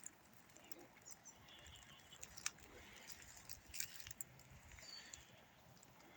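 Near silence with a few faint, scattered clicks and rustles.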